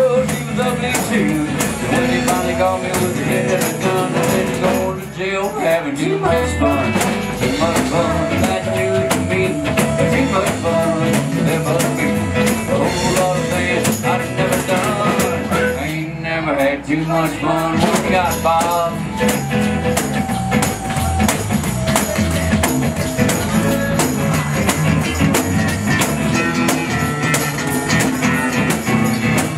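Live acoustic guitar and tambourine playing an upbeat blues-rock song, the tambourine jingling through it.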